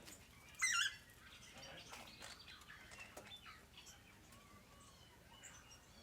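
Aviary birds calling: one loud, sharp warbling call about half a second in, then scattered softer chirps and short whistles with a few faint clicks.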